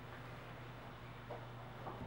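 Faint steady low hum of room tone, with two soft handling taps about a second apart in the second half.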